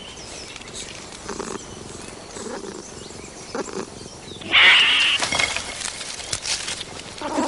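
A domestic cat making short low growling calls, then a loud hiss about four and a half seconds in, followed by a flurry of rustling and sharp clicks in the branches.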